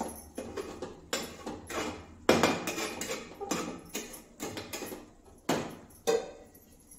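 Steel spatula scraping and clinking against a steel kadai while brinjal pieces are turned in masala. It is an irregular run of short scrapes and knocks, the loudest about two seconds in.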